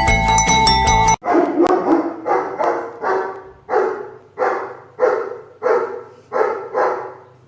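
Dog barking in a run of about ten short barks, a little under a second apart, that fade toward the end. It opens with background mallet-percussion music that cuts off abruptly about a second in.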